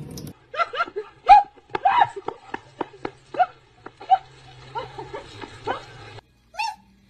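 Dog yelping in a quick series of short, high calls, each falling in pitch, with one more call near the end. It opens with a moment of running tap water that cuts off.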